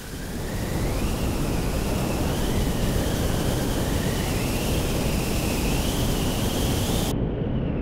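A steady rushing noise with a faint high whistle wavering slowly up and down; it fades in at the start.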